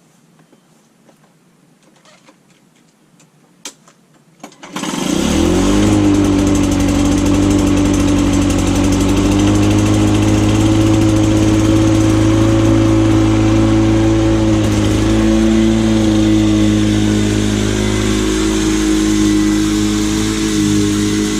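Lawn-Boy 10323 walk-behind mower's Duraforce two-stroke engine starting up after a few faint clicks about four and a half seconds in, its pitch rising briefly, then running steadily at full speed.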